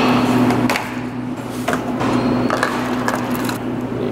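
Handling noises: a paper cup pulled from a stacked cup dispenser at the start, then scattered light clicks and knocks, over a steady low hum.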